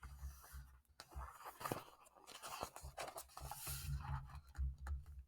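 Faint rustling, small clicks and soft low thumps of a picture book being handled as its pages are turned.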